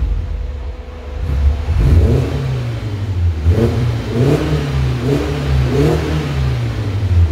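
BMW E92 320i's inline-four engine revved while stationary, breathing through an M Performance exhaust and a K&N air filter. It drops back toward idle about a second in, then gives about five short throttle blips, each rising and falling quickly.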